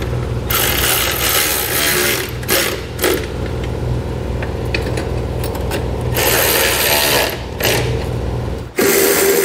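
Cordless electric ratchet with a 13 mm socket whirring in a few spells of a second or two, stopping and starting as it runs the running-board bracket bolts in snug. It is a low-torque tool, so the bolts are only being snugged.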